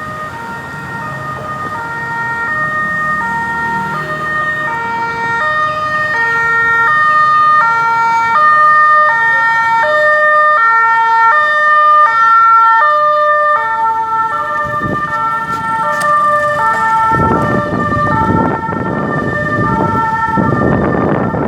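Ambulance siren sounding a two-tone hi-lo wail that switches pitch about every two-thirds of a second, growing louder as it approaches. Near the end the rushing noise of the vehicle passing close joins the siren.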